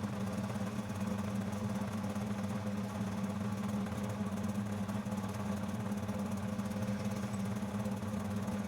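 Homemade metal lathe running steadily under its electric motor, with an even hum.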